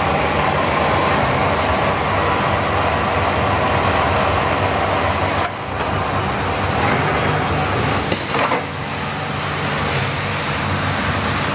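Biesse Rover 23 CNC machining center running: a steady hiss over a low hum from its motors. The sound dips briefly about five and a half seconds in, and there are a couple of short knocks about eight seconds in.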